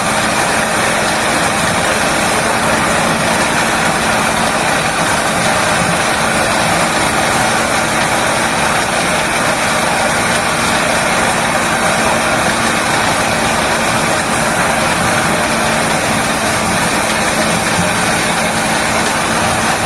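Engine-driven corn sheller running steadily: a constant motor hum with a dense, even noise over it.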